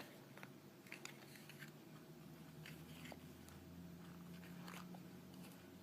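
Near silence: a faint steady low hum with a few faint small clicks and taps from Play-Doh and its plastic toy tools being handled.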